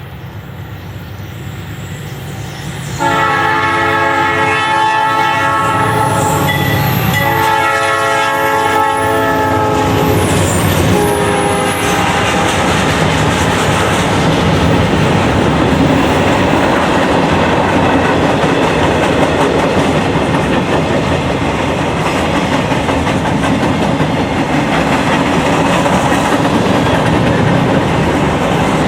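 Norfolk Southern diesel freight locomotive sounding its horn: two long blasts and then a shorter one, the first starting about three seconds in. After it comes the steady rumble and clickety-clack of the freight train rolling by.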